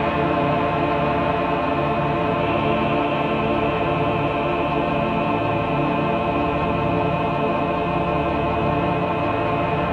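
Background music: sustained, droning synthesizer-like chords with a choir-like quality, held steady.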